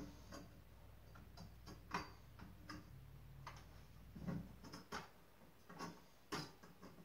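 Faint, irregular clicks and taps from the metal frame and pole stand of a life-size animatronic clown prop being handled and fitted together, with a few soft thuds.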